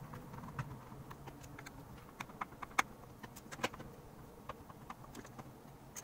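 Scattered small clicks and taps of a screwdriver and fingers on a disassembled Keychron K4 keyboard's switch plate as its screws are taken out, played at five times speed over a faint steady hum.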